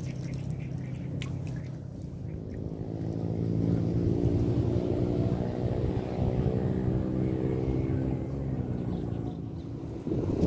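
A passing motor engine hums steadily, growing louder about three seconds in and holding, its pitch dipping slightly near the end. A rush of wind noise on the microphone comes in during the last half second.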